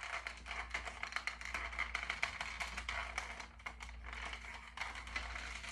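Toy foam-dart minigun blaster handled and worked: a quick, irregular run of light plastic clicks and rattles from its mechanism, with no shot fired.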